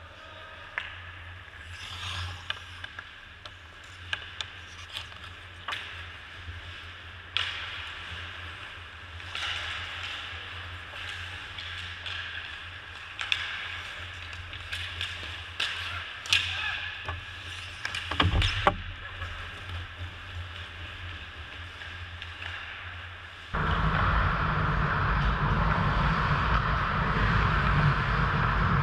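Ice hockey play heard from a goalie's helmet camera: scattered sharp clacks of sticks and puck over a low steady rink rumble. About two-thirds of the way through, a loud steady rushing noise starts suddenly and runs on.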